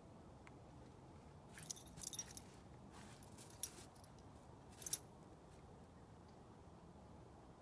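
Metal tags on a small dog's collar jingling in several short bursts as it bounds through deep snow, over faint background hiss.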